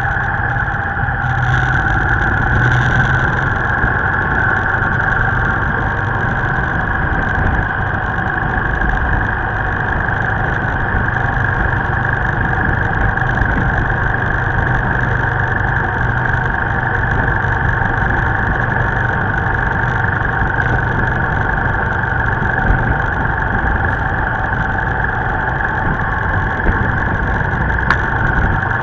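Steady motorbike engine and road noise while riding along a busy road, with passing traffic mixed in. It swells briefly about two to three seconds in.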